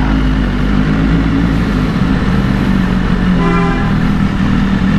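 A BMW S1000RR's inline-four engine running steadily under the rider. About three and a half seconds in, a vehicle horn toots once for about half a second.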